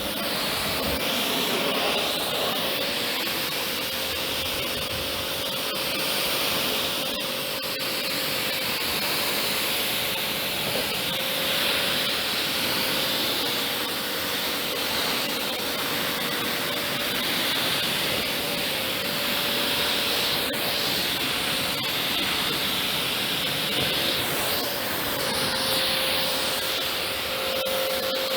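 Kärcher K7 pressure washer running and spraying water, a continuous hiss that swells and fades as the jet moves, over a steady hum from the machine.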